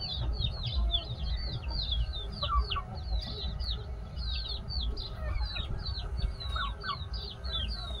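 A brood of domestic chicks peeping nonstop: many short, high, falling peeps, several a second, with a few lower calls among them and a low rumble underneath.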